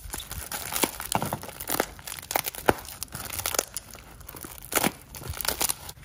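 Bubble wrap crinkling and tearing as it is pulled off a heavy steel tow hook, with many irregular sharp crackles.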